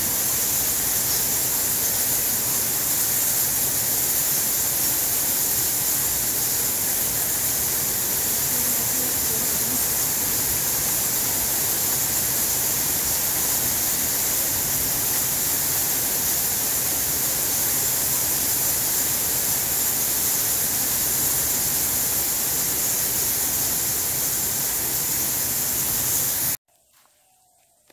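A loud, steady hiss of even noise, strongest in the highest pitches, with no distinct calls standing out; it cuts off suddenly near the end.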